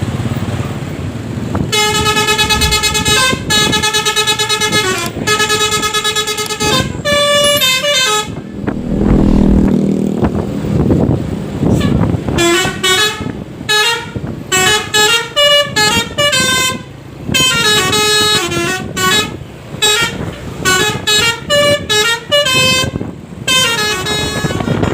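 Bukit Jaya bus's Basuri V3 telolet horn playing a multi-note tune: three long held chords, a quick run of notes, then after a low engine rumble in the middle, a long stretch of short notes hopping in pitch in fast repeating patterns. Engine and road noise run underneath.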